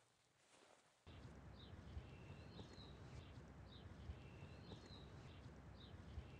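Faint outdoor nature ambience that comes in about a second in: a steady low hiss and rumble with small birds chirping about once a second.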